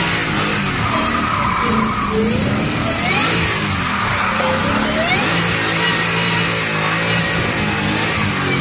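Whipple-supercharged 2015 Ford Mustang V8, about 770 hp, revving hard up and down again and again while its rear tyres spin and squeal on the pavement in a smoky burnout.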